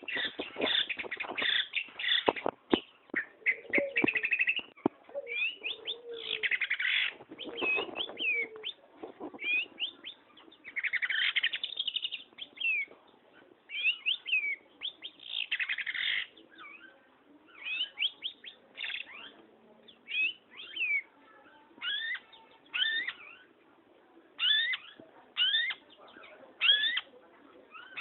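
Long-tailed shrike (pentet) singing hard: a busy run of chattering, scratchy phrases, then from about halfway on separate sharp sliding notes about once a second.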